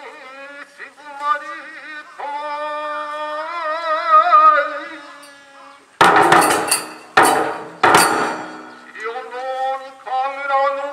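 Nanbu kagura music: a male voice chanting long held notes with a wavering vibrato, broken about six seconds in by three loud crashing strokes of the drum and hand cymbals that ring on, after which the chant resumes.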